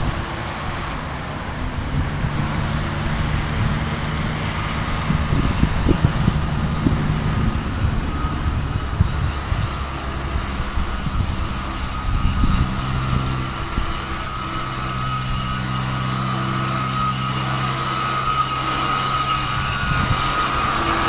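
Small electric motor of a 9.6-volt Tornado RC toy boat whining as the boat runs on the water, the whine growing louder near the end. Under it sit a low steady drone and an uneven rumble of wind on the microphone.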